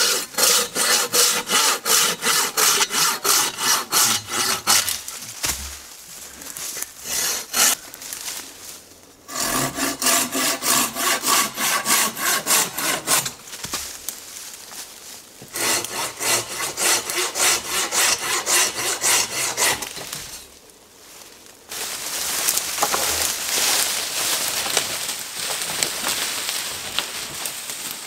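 Hand pruning saw cutting through a tree branch in quick back-and-forth strokes, about three a second, in three bouts with short pauses between. For the last several seconds a steadier rasping, rustling noise takes over.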